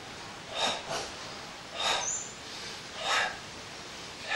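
A person breathing hard and rhythmically through the nose in qi gong breathing, with a strong rush of breath about every second and a quarter, paced with swinging arm movements.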